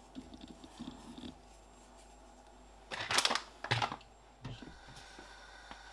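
Hands pressing and turning balls of raw minced beef on a wooden board, a soft squishing, then two short loud rushing bursts about three seconds in.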